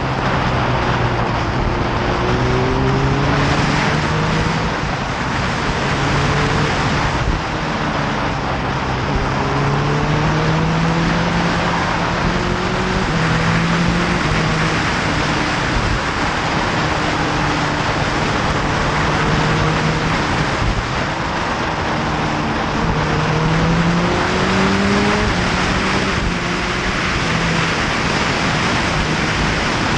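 Motorcycle ridden at speed: heavy wind rush over the microphone, with the engine note climbing and dropping several times as the rider accelerates, eases off and changes gear.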